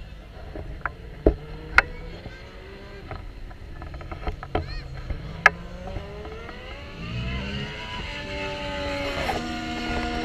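Racing engines growing louder over the last few seconds, their pitch rising and stepping through gear changes. A few sharp knocks in the first half.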